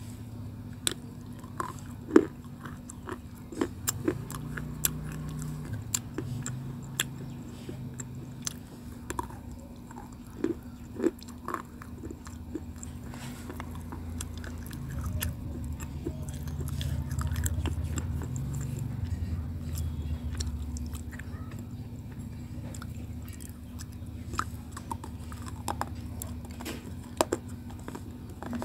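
Teeth biting and chewing a chunk of white slate stone: sharp, brittle crunches and cracks, the loudest about two seconds in. The crunching thins out in the middle and picks up again near the end, over a steady low hum.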